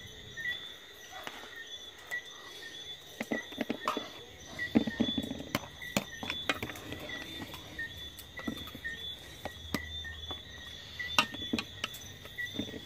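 Insects chirping steadily in a high, even trill, with scattered sharp clicks and knocks throughout, the loudest about five seconds in and again near eleven seconds.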